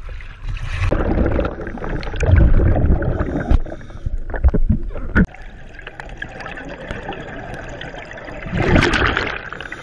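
Sea water splashing and sloshing against a camera bobbing at the wave surface, with low buffeting. From about five seconds in the sound turns to muffled underwater noise, and near the end comes a loud rush of a scuba diver's exhaled regulator bubbles.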